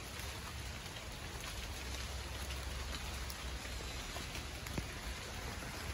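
Steady rain falling on leaves and leaf litter, with a few faint ticks of single drops.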